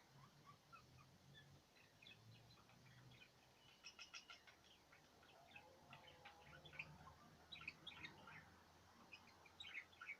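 Budgerigars chattering: faint, rapid chirps and warbling notes in quick succession, growing busier about halfway through.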